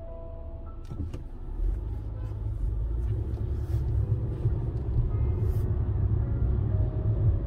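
Low rumble of a car on the move, heard inside the cabin, swelling about a second and a half in, with a few clicks just before it.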